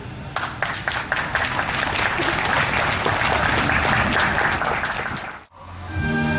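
Audience applauding with dense clapping, which cuts off suddenly about five seconds in. A military brass band then starts the next piece.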